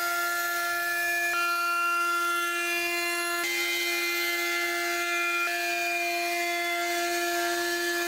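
Compact handheld router running at full speed and cutting along the edge of a hardwood plank: a steady high-pitched whine whose overtones shift slightly a few times as the bit is pushed through the cut.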